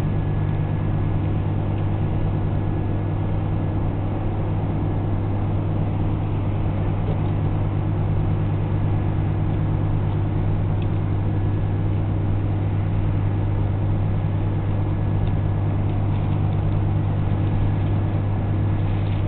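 A steady, low engine hum that holds one even pitch and level throughout.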